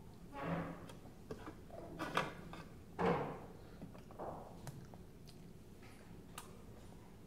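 A toddler eating and feeding herself with a metal spoon from a plastic bowl: scattered small clicks and knocks, and three short louder sounds in the first three seconds or so.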